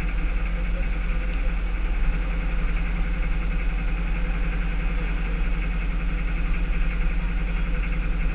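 Tow truck engine idling steadily.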